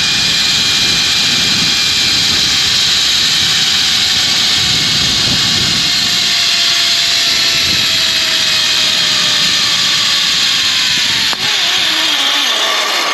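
Zip-line trolley pulleys running along the steel cable, a steady loud whir with wind rushing over the microphone. A faint whine slowly falls in pitch as the rider slows, and a single sharp knock comes near the end.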